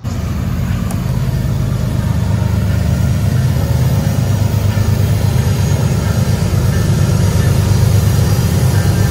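Diesel locomotives of an approaching BNSF freight train, a steady low engine rumble that grows slowly louder as they come closer.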